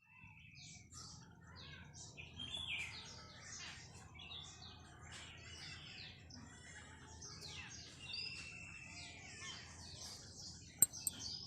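Several small birds chirping together, many short overlapping calls with no pause. Two sharp clicks near the end.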